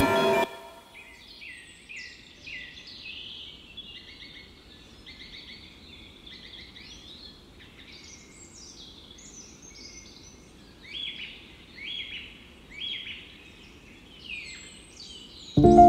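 Birds chirping and twittering in a steady string of short, high calls, with a few louder chirps about once a second around eleven to thirteen seconds in. A louder sound cuts off about half a second in, and music cuts in right at the end.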